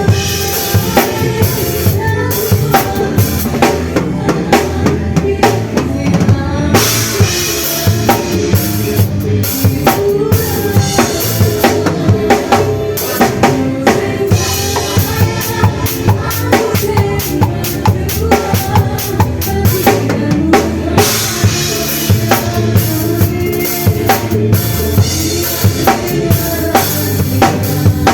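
Drum kit playing a steady beat, bass drum and snare to the fore, with pitched instruments underneath, as in a band sound check.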